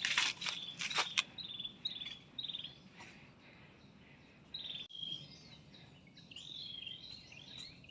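Tropical forest birds calling. A series of short, high trilled chirps comes about twice a second, and after a pause a run of warbling calls rises and falls in pitch. Two sharp clicks sound in the first second or so.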